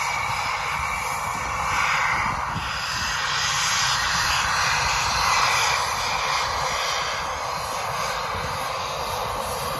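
Eurofighter Typhoon's twin EJ200 turbofan engines running as the jet taxis past: a steady jet rush, swelling slightly around the middle as it comes closest.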